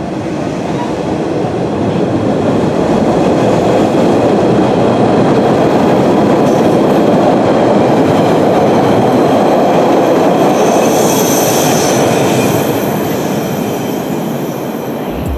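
Older MBTA Orange Line subway train of Hawker Siddeley-built cars running past the platform, its wheel-and-motor rumble swelling over the first few seconds and fading as the last car clears. A thin, high wheel squeal rises over the rumble about two-thirds of the way through.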